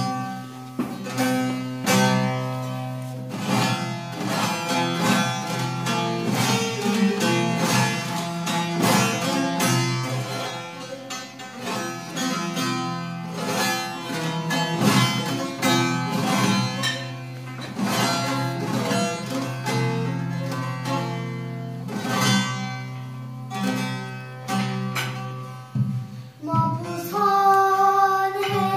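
Bağlama (Turkish long-necked saz) playing a plucked instrumental passage between sung verses. A girl's singing voice comes back in with long held notes near the end.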